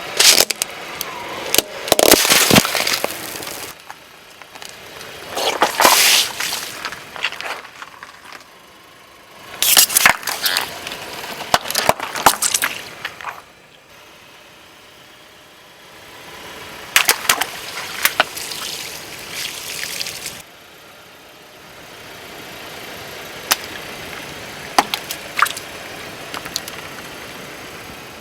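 Objects being crushed under a car's tyres: several separate bursts of cracking and crunching, each a second or few long, with quieter spells between.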